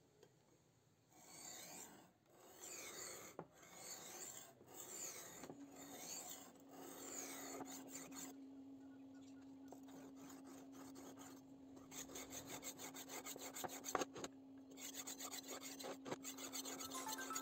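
Hand filing on a homemade knife: rasping strokes, slow and spaced about a second apart at first, then quicker and closer together after about twelve seconds. A faint steady hum starts about five seconds in.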